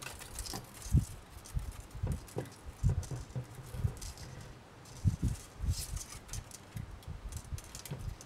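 Thin craft wire being wrapped around a wire pendant frame and pulled through by hand: irregular light knocks and rattling as the long wire moves and taps against the frame and work surface.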